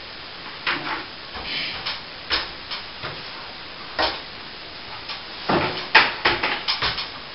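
Irregular knocks, clicks and short scrapes of objects being handled at close range, over a steady low hiss; they come thickest and loudest about five and a half to seven seconds in.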